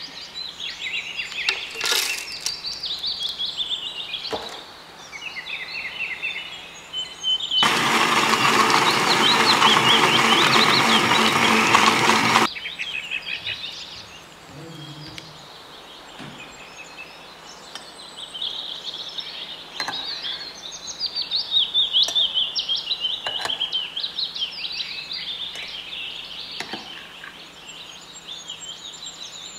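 Birds chirping continuously. About a third of the way in, an electric blender runs loudly for about five seconds, blending coconut flesh with coconut water, then stops suddenly. A few light knocks come in between.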